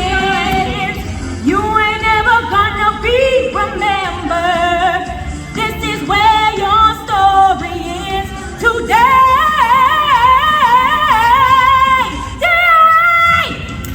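A song sung over musical accompaniment, the voices ending on long held notes with vibrato.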